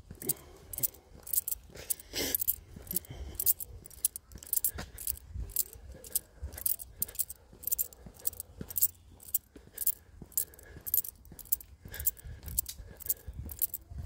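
Footsteps of a person walking on a dry dirt forest path, about two steps a second, each step a short crisp sound.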